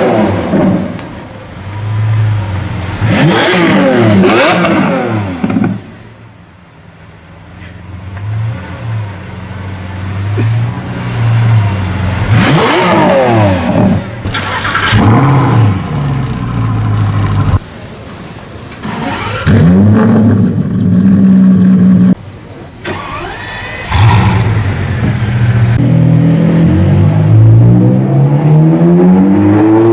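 High-performance sports-car engines revving and accelerating, one after another: the engine note climbs and falls in several sharp sweeps, with sudden changes from one car's sound to the next. One stretch, about six to twelve seconds in, is quieter.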